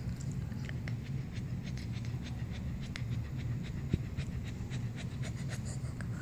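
A Cavalier King Charles spaniel panting hard while lying at rest, rapid breaths with many small mouth clicks.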